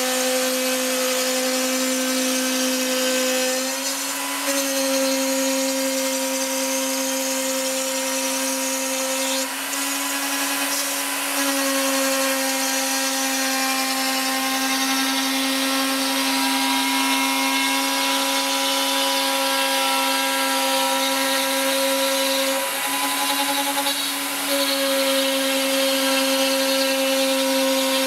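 CNC router spindle running steadily with a high whine over a cutting hiss. Its pitch shifts slightly a few times.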